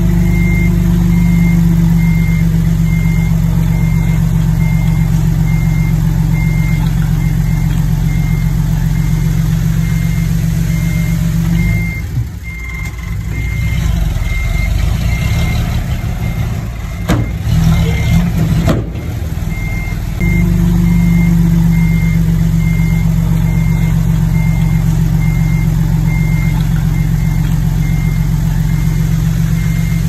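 Heavy earthmoving machine's diesel engine running loud and steady, with a reversing alarm beeping at an even pace. The engine note falls back for several seconds midway, with a couple of sharp knocks, then comes back up.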